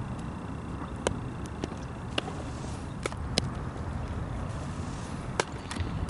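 Outdoor ambience: a steady low rumble with several sharp clicks scattered through it.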